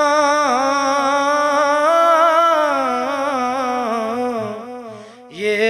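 A man's voice singing a devotional Urdu kalam, holding one long drawn-out note that wavers in pitch with ornaments and fades out about five seconds in. A new sung phrase starts just before the end.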